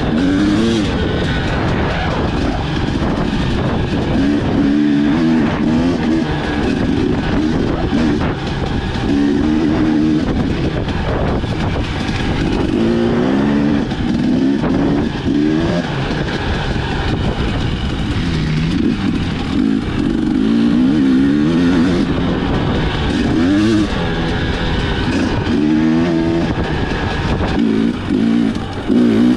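Husqvarna TE250 two-stroke single-cylinder dirt bike engine ridden hard along a trail, its pitch rising and falling over and over as the throttle is opened and closed and gears change.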